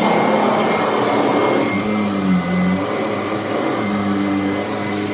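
Vacuum cleaner motor with a ten-bladed metal fan running with the nozzle sucking against the floor: a steady hum and air rush, its pitch wavering partway through and settling slightly quieter.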